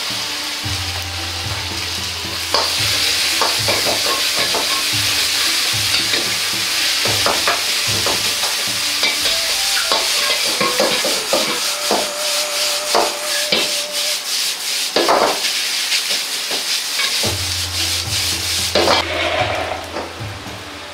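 Rice stir-frying in a carbon-steel wok over a gas flame: a steady sizzle with a metal ladle scraping and clacking against the wok. The sizzle falls away near the end.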